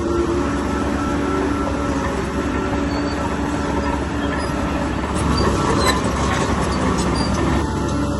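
Bulldozer running under load, its diesel engine droning steadily while the steel tracks squeal and clank, with a cluster of sharper clanks and rattles about five to seven seconds in.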